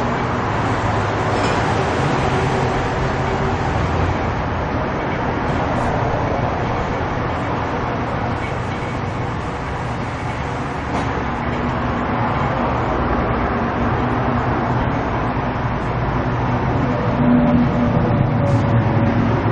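Steady running noise of a motor vehicle, with a low engine hum under a wide even noise and no clear changes.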